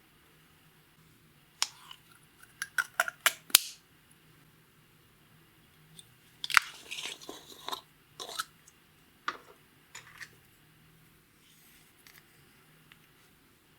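Clear slime being squeezed and pressed by hand, giving clusters of sharp, crackling pops and clicks with quiet between them: the first about a second and a half in, the second about halfway through, and a few softer pops after that.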